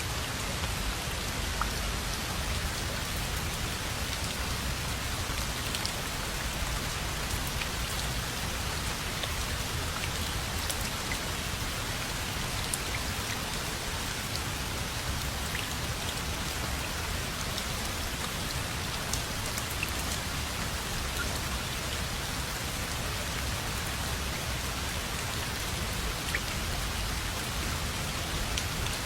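Steady rain falling, an even hiss with scattered small drop ticks and a low rumble underneath.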